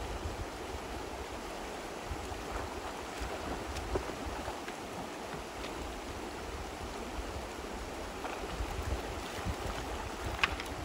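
River water rushing over shallow rapids in a steady wash, with gusts of wind buffeting the microphone in low rumbles. A brief splash comes near the end as a dog wades out of the river.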